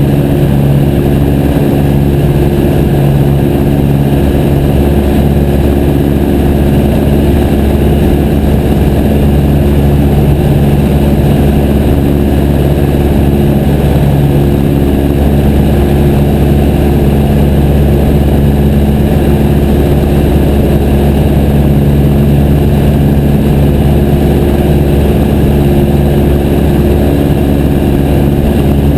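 Piper J3 Cub's air-cooled flat-four engine and propeller running loud and steady at constant power, with no change in pitch.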